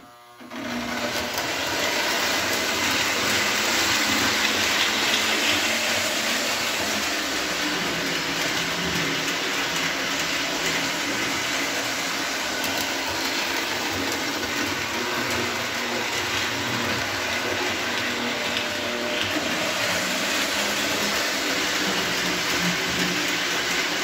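Lionel postwar 2383 F3 diesel's single motor running steadily with its gear growl, and the wheels rolling on three-rail tubular track as it pulls passenger coaches. The sound comes up about half a second in and then holds even.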